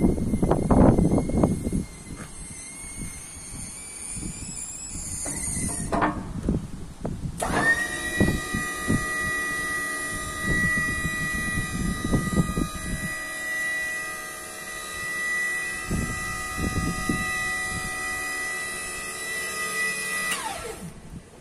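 Electric hydraulic pump motor of a semi-electric walkie stacker, whining steadily as it raises the forks. It starts abruptly about seven seconds in and cuts out shortly before the end. Clattering metal knocks are heard at the start, with scattered knocks throughout.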